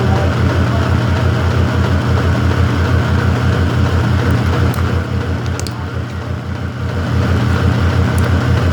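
A household machine running with a loud, steady low hum and a fast, even pulse, easing off slightly around the middle.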